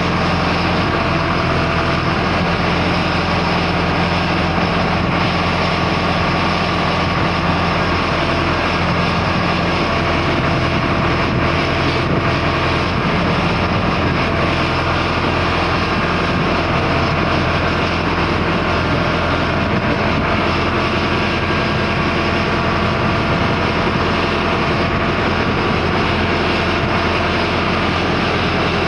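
Tractor diesel engine running steadily at a constant speed while it drives the hydraulics of a tractor-mounted knuckle boom crane.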